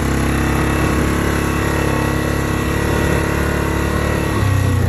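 ATV engine running steadily while the quad rides through tall grass; near the end its note drops lower and the low hum grows stronger.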